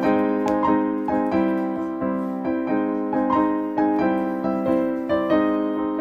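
Background music: an electric piano playing a gentle tune in evenly spaced notes.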